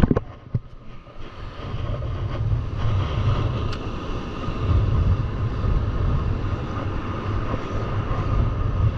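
Wind buffeting the microphone with a heavy low rumble, over the wash of surf on the beach.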